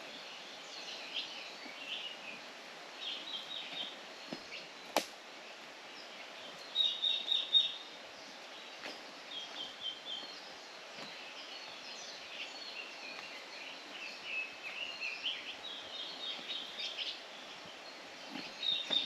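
Songbirds singing: short phrases of quick, high chirps repeated every few seconds over a steady background hiss, with a single sharp click about five seconds in.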